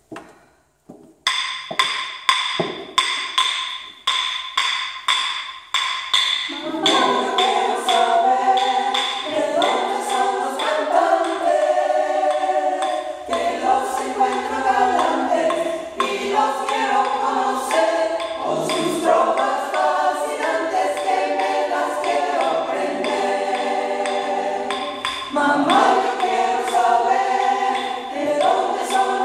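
Claves clicking out a rhythm, alone for the first few seconds. About six seconds in, a choir begins singing a cappella over the steady clave strikes.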